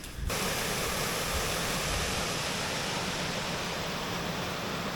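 Steady rushing of a hillside stream, an even hiss of flowing water that comes in suddenly just after the start.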